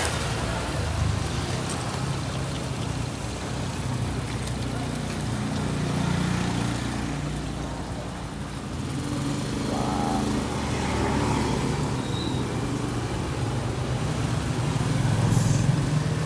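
Busy street ambience: motorbike and car engines running and passing, with a steady traffic hum and background voices.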